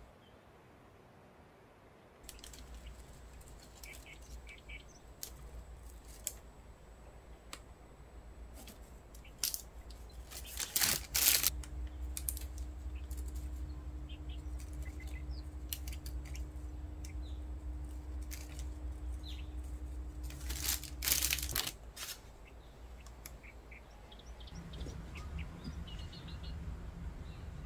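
Quiet room sound with scattered light clicks and taps of hands handling cakes and a piping bag. A low steady hum comes in about 11 seconds in, after a cluster of louder clicks, and stops about 22 seconds in.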